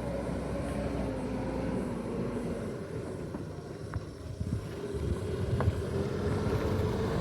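Vehicle engine running steadily, a low rumble with a held hum that drifts slowly in pitch, and two faint clicks partway through.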